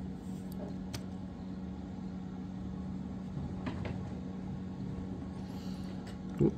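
Steady low background hum with a few faint, light clicks, and a brief louder sound near the end.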